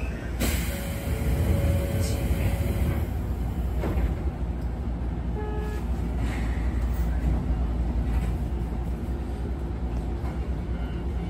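Izuhakone Railway Daiyuzan Line electric train running, heard from on board: a steady low rumble, with a sharp knock about half a second in and a few fainter knocks after.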